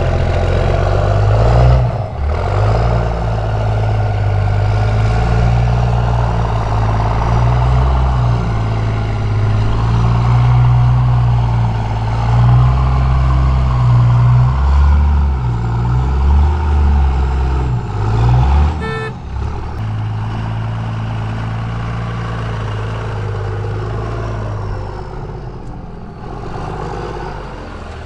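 Diesel pickup engine running under load at changing revs while towing, its deep note rising and falling. A brief rattle of clicks comes about two-thirds of the way in, and the engine is a little quieter after it.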